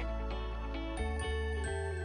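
Soft background music of held, sustained notes, moving to new notes about a second in and again shortly after.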